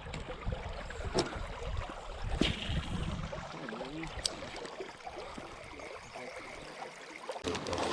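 River water flowing steadily around a drifting jon boat, with a few light sharp knocks.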